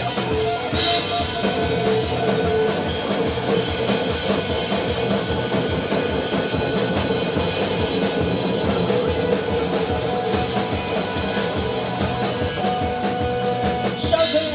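Live rock band playing an instrumental passage between sung verses: drums keeping a steady beat under electric guitars and bass, with sustained held notes.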